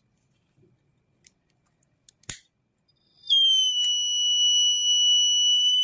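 Quiet apart from one sharp click about two seconds in. Then, a little past three seconds, a DIY fire alarm circuit's buzzer sets off with a steady, unbroken high-pitched tone: the alarm has been triggered.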